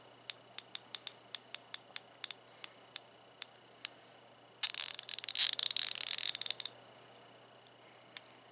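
Proto 90-tooth quarter-inch drive flex-head ratchet clicking: single pawl clicks as the handle is swung back slowly, then, about four and a half seconds in, two seconds of fast ratcheting that runs the clicks together into a rapid buzz, the loudest part.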